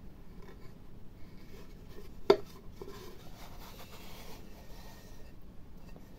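Hands handling a bare linden-wood box blank: a sharp wooden click a little over two seconds in as the hinged lid is opened, a smaller tap soon after, then soft rubbing of fingers on the wood.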